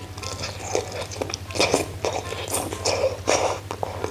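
A person eating soft strips of spicy hot pot food, with wet slurping and chewing mouth sounds coming in irregular bursts.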